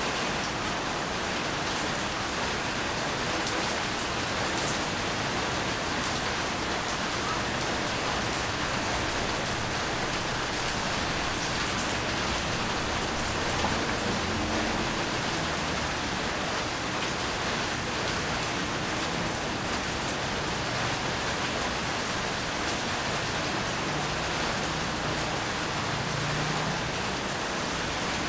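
Steady rainfall: a dense, even hiss of rain with scattered drop ticks.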